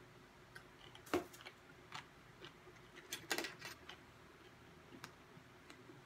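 Scattered sharp clicks and taps while eating, the loudest about a second in and a quick cluster a little past three seconds, as a fork scoops food from a plastic side cup.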